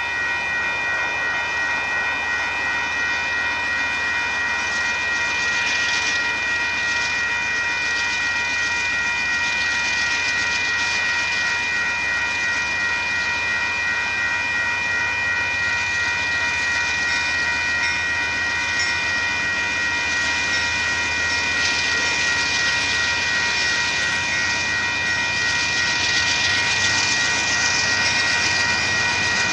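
Railroad grade-crossing warning bell ringing rapidly and without a break, while a freight train's diesel locomotives approach, their rumble and the wheel noise growing louder near the end.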